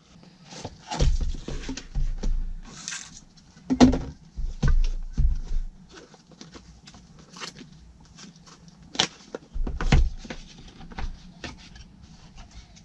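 Small paperboard retail box being opened by hand: irregular rustles, scrapes and light taps as the flaps are worked and the inner tray slides out.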